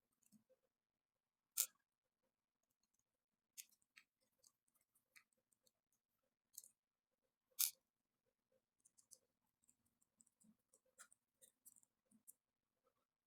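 Scattered light clicks and taps of small reel parts and tools being handled as a spinning reel is disassembled, with two sharper clicks about a second and a half in and about seven and a half seconds in.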